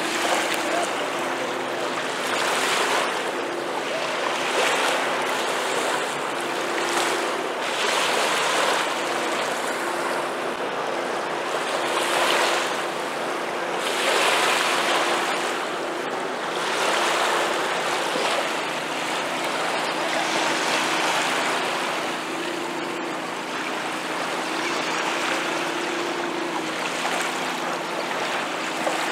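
Small waves lapping and washing onto a sandy shore, the wash swelling every two seconds or so, with a steady low engine hum underneath.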